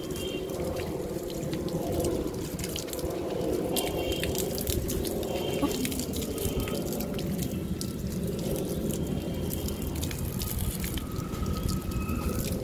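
Water running from a garden hose onto potted plants, a steady splashing and dripping.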